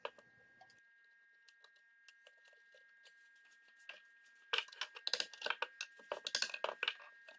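Hands and tools working a small speaker apart, prying at its housing and magnet: a few faint ticks at first, then from about halfway in a dense run of quick, irregular clicks and scrapes.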